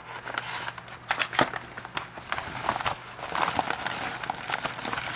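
Handling noise: a run of small clicks and knocks over rustling, as locks and their packaging are handled and put away.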